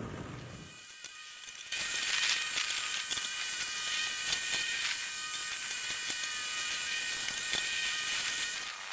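Vibratory plate compactor running as it is worked over a gravel pad: a steady, buzzy mechanical drone that cuts in sharply about two seconds in, after a quieter start.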